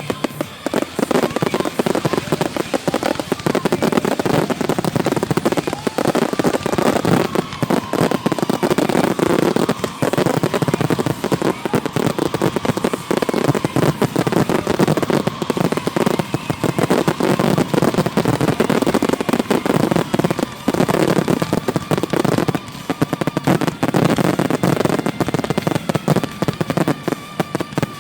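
Aerial fireworks going off in a rapid, continuous barrage of bangs and crackle, with no pauses.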